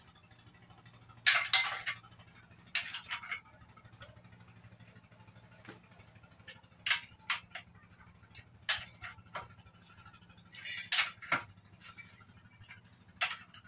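Hand tools and metal parts clinking and clattering against a diesel engine block during assembly: scattered sharp metallic clicks and short bursts of clatter, loudest about a second in and again near the end, over a faint steady hum.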